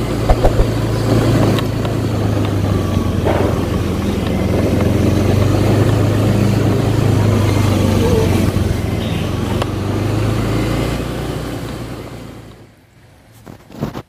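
Steady low mechanical drone of sawmill machinery running, with a few sharp clicks shortly after the start. The drone fades away about twelve seconds in.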